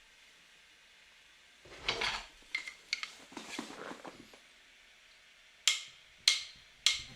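Kitchenware being handled: a few scattered clinks and knocks, some in quick clusters.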